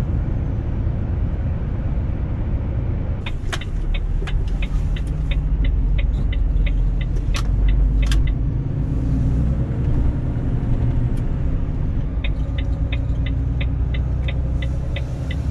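Steady diesel engine and road rumble inside a Volvo truck's cab while driving, with the turn indicator ticking about four times a second. The ticking runs in two stretches, one a few seconds in and one near the end. A few sharp knocks come in the middle.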